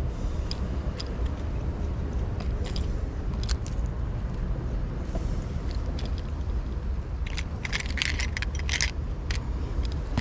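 Lures with metal hooks and spoons rattling and clicking in a clear plastic tackle box as they are picked through by hand, with a denser run of rattles near the end. A steady low rumble runs underneath.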